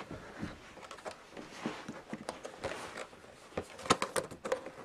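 Cardboard packaging being handled and opened by hand: scattered faint taps and rustles, with a few sharper clicks near the end.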